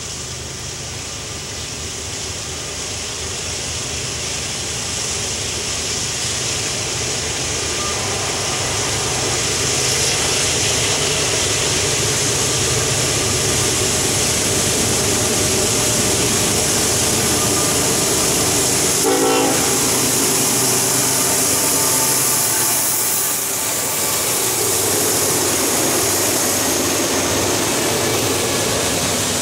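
Norfolk Southern freight train led by a GE ES44AC and two GE D9-44CW diesel locomotives approaching and passing, growing louder over the first ten seconds. A brief horn blast sounds about 19 seconds in, and then the freight cars rumble and clatter by on the rails.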